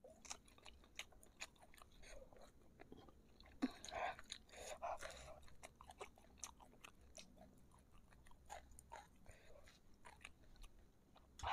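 Faint close-up chewing of fried meatballs: soft wet mouth clicks and smacks, a little louder for a couple of seconds about four seconds in.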